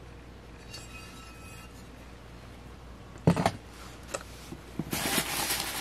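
Room tone, then about three seconds in a ceramic piece is set down with a sharp knock, followed by a few small clicks. Near the end comes rustling of packing material as wrapped items are handled.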